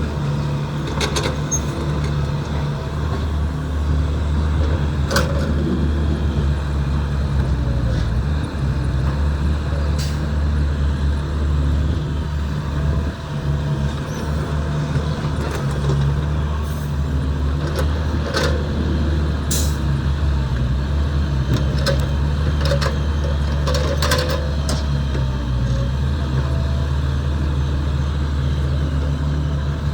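Heavy diesel earthmoving machinery running steadily under load, with scattered sharp clanks and knocks from the work.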